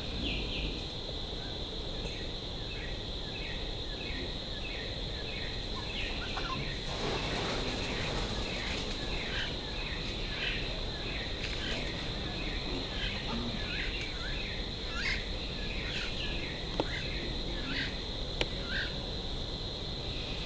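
Red-vented bulbul nestling begging for food with short, high cheeps repeated about twice a second, while a parent comes to the nest. A steady high-pitched drone runs underneath.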